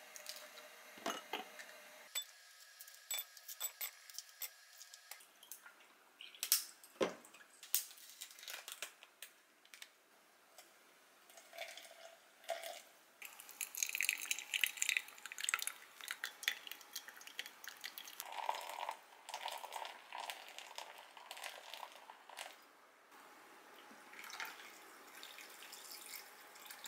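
Hot water poured in a thin stream from a kettle into a paper drip-bag coffee filter set over a glass, splashing and dripping, with light knocks of glassware and dishes on the counter. Near the end, brewed coffee is poured from a glass server into a glass of milk.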